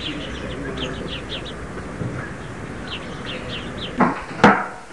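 Small birds chirping repeatedly outdoors, short high chirps several times a second, then two loud sharp thumps close together near the end.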